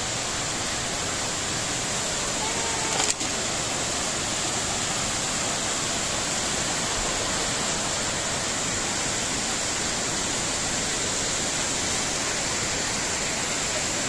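Steady rushing roar of Kapuzbaşı waterfall, many cascades of water pouring down a rock face and crashing onto the rocks below. A single sharp click sounds about three seconds in.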